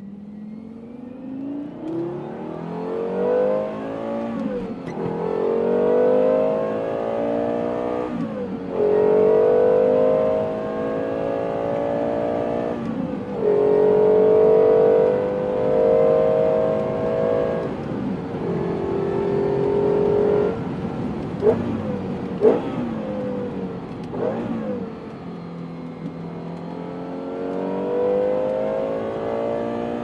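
Lexus LFA's 4.8-litre V10 heard from inside the cabin, accelerating hard through the gears: the engine note climbs steeply, then drops sharply at each of five quick upshifts. A little past the middle come two sharp cracks; the note then falls away and climbs again near the end.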